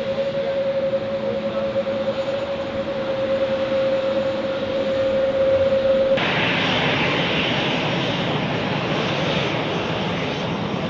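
Jet airliner engines running at taxi power: a steady whining tone over a rushing noise. About six seconds in it cuts off abruptly and gives way to a hissier jet noise with no tone.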